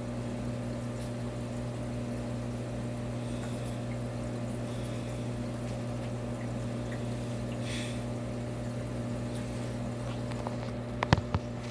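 Aquarium filtration running: a steady hum with water trickling and bubbling, and a couple of short knocks near the end.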